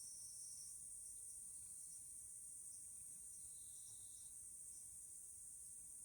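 Near silence with a faint, steady high-pitched insect chorus, like crickets chirring; one lower voice of the chorus drops out under a second in, and a brief faint tone sounds about halfway through.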